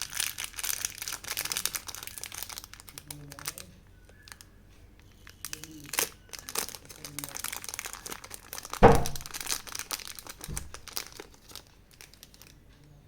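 Plastic packaging crinkling and tearing as it is handled and opened. Dense crackling in the first few seconds eases off briefly, then resumes. A single loud knock about two-thirds of the way through is the loudest sound.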